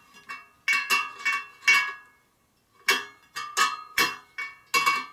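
Wire spokes of a laced motorcycle wheel tapped one after another with a metal tool, each giving a short metallic ping, about ten in all with a pause near the middle: spoke tension being checked by ear, hunting for loose and tight spokes.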